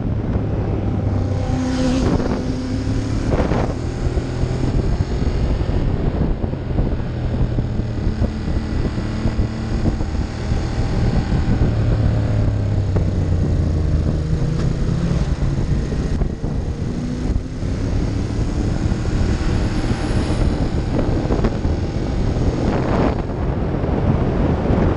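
Ducati Monster 1200's L-twin engine running under way, its pitch rising and falling as the rider works the throttle, mixed with heavy wind noise on the camera's microphone and brief wind gusts near the start and near the end.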